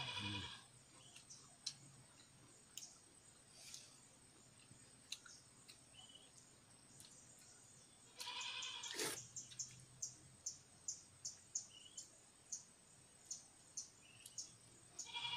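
A goat bleats once, about eight seconds in, and again just at the end. Short high ticks follow the first bleat, about two a second.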